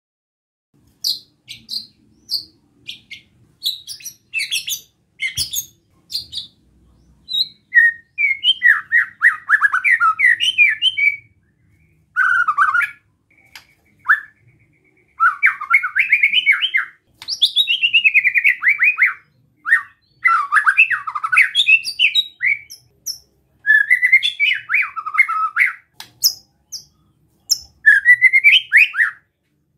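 White-rumped shama singing: a scatter of short, sharp high notes, then from about eight seconds in a run of fast, rough warbled phrases a second or two each, the 'besetan' phrasing used to provoke other shamas.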